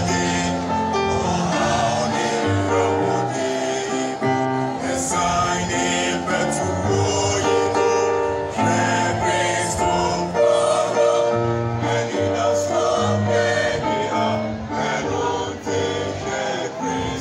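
Mixed choir singing a hymn in held, blended chords, amplified through a PA system.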